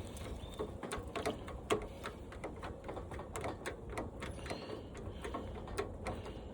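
Irregular light clicks and taps of a hand tool working a screw loose on an old washing machine's frame, several a second.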